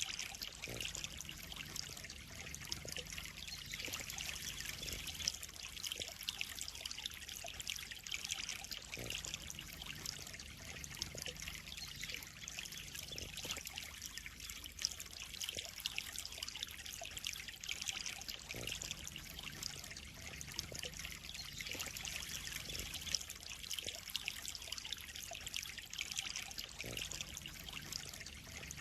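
Water trickling steadily into a koi pond.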